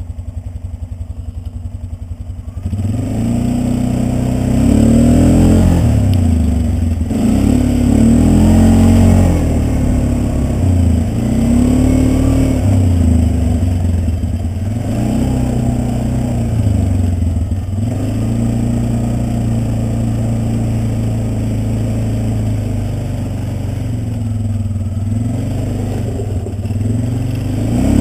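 Polaris Sportsman 400 ATV's single-cylinder four-stroke engine idling, then pulling away about two and a half seconds in and running louder, the revs rising and falling again and again as it rides along.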